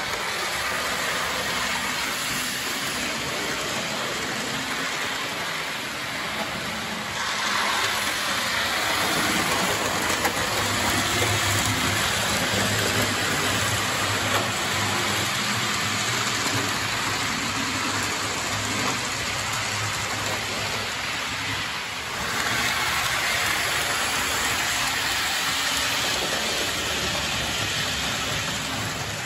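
Model electric locomotive (DB class E103) and its TEE coaches running along a model railway: a steady rushing of wheels on the track with a faint low motor hum. It gets louder about seven seconds in and again around twenty-two seconds.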